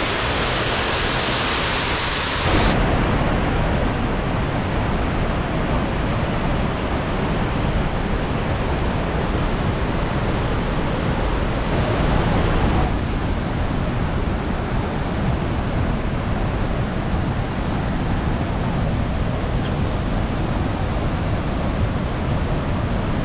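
Steady rush of the Rhine Falls, a dense wash of falling water; its tone shifts abruptly about three seconds in.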